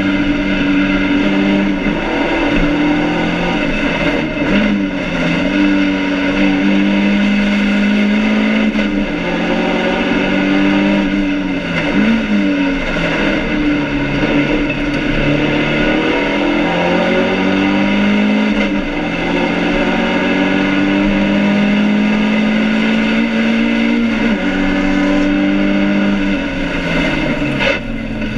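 BMW 2002 race car's four-cylinder engine at racing speed, heard from inside the stripped cabin. The revs climb through each gear, then drop sharply several times at shifts and lifts for corners.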